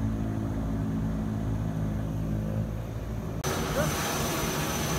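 Steady drone of an aircraft engine with several held low tones. A little over three seconds in it cuts off suddenly to open apron noise with voices and a faint high steady whine.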